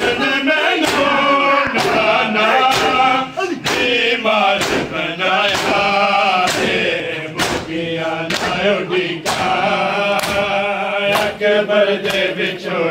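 A group of men chanting a mourning noha in unison, with open-hand chest-beating (matam) slaps landing in time about once a second.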